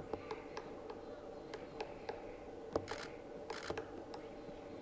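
Camera shutters clicking irregularly, with a couple of short rasping shutter bursts about three seconds in, over a faint steady hum.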